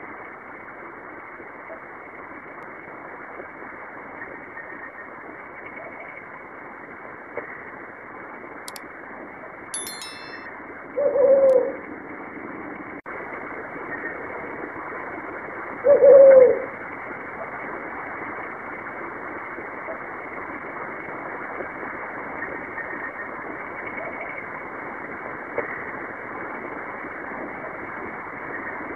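Brown fish owl calling: two short, deep hoots, one about eleven seconds in and another about five seconds later, over a steady background hiss.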